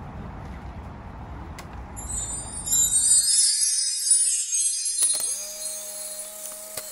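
Steady outdoor background noise, then a twinkling Christmas-style music cue of jingle bells and chimes comes in about two seconds in and takes over as the background noise cuts out. Two held notes join it near the end.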